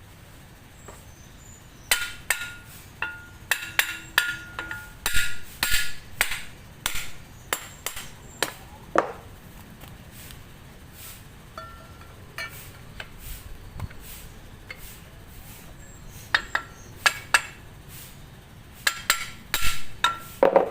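Hand tools tapping and clinking on metal parts: a run of sharp taps, some with a brief ringing note, in two busy spells with a lull between.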